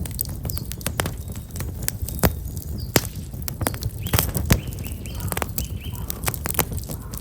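Black locust firewood burning in an open campfire, crackling with frequent sharp, irregular snaps and pops over a low steady rumble. Small birds chirp a few times around the middle.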